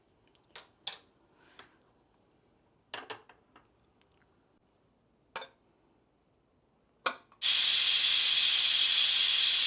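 A few light clinks and knocks of kitchen utensils, then, about seven seconds in, a pressure cooker suddenly lets off steam with a loud, steady hiss.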